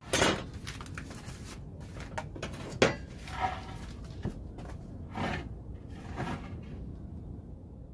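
Scattered knocks, clicks and rustles of hard objects being handled, with the sharpest knock a little under three seconds in, over a steady low background hum.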